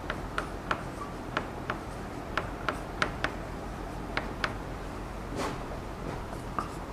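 Chalk writing on a blackboard: irregular sharp taps and short scrapes as each letter is formed, about two or three a second, with one longer scratch about five and a half seconds in.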